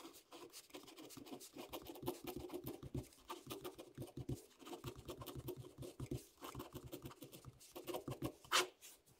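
Pen writing block capitals on paper: a quick run of short, irregular scratchy strokes, with one louder stroke near the end.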